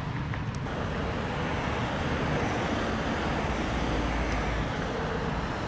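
Steady road traffic noise: a continuous rumble and hiss of passing vehicles, with one brief tick about half a second in.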